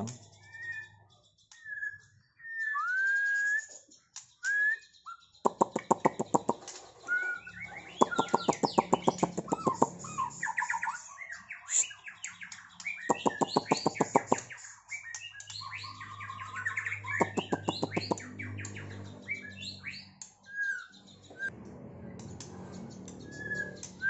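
Male white-rumped shama (murai batu) singing: clear rising and falling whistles, then several fast rattling runs of rapid repeated notes a few seconds long, mixed with varied song phrases. The caged males are being matched against a rival to draw out their song.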